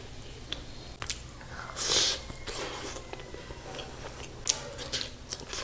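A person biting and chewing cooked goat mutton close to the microphone: wet squishing with scattered sharp clicks, and a louder short rasp about two seconds in.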